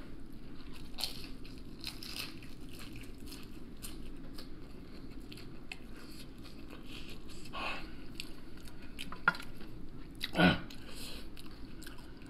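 Chewing crispy battered fried shrimp, with repeated small crunches and mouth clicks and a short low voice sound about ten seconds in.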